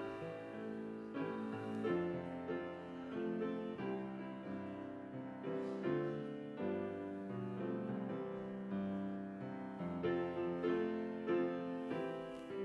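Solo piano playing a slow, gentle piece, with chords and single notes sounding in turn.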